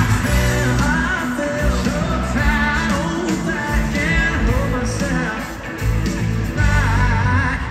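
Live pop-rock band performing: a lead voice singing over electric guitar, bass and drums.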